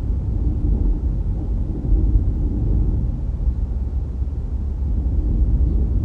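Low, steady rumble of a car driving along a road: tyre and wind noise.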